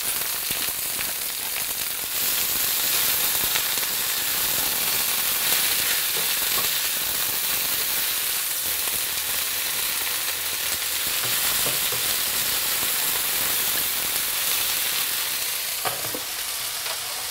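Blanched water spinach sizzling steadily in hot garlic oil in a nonstick frying pan as it is stir-fried. The hiss grows stronger about two seconds in, with occasional light taps and scrapes of a wooden utensil against the pan.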